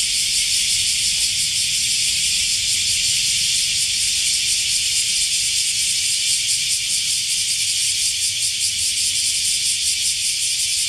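Insect chorus: a loud, steady high-pitched hiss with a faint fast pulse, unchanging throughout.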